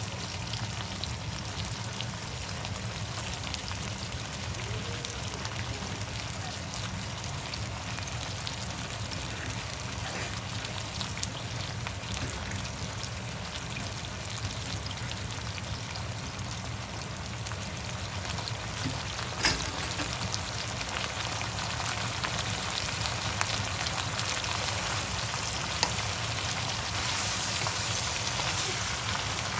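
Food sizzling in a hot pan, a steady crackle, with one sharp click about twenty seconds in.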